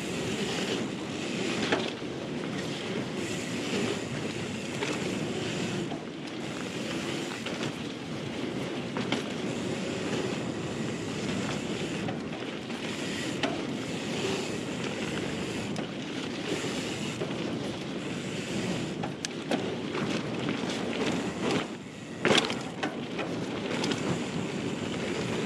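Mountain bike ridden fast on a dirt trail: steady wind rush on a chest-mounted action camera mixed with tyres rolling over packed dirt. A few sharp knocks from the bike hitting bumps, the loudest near the end.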